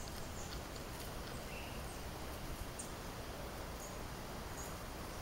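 Woodland ambience: scattered faint, short, high-pitched chirps and ticks from small birds or insects over a steady low background rumble. No loud call is heard.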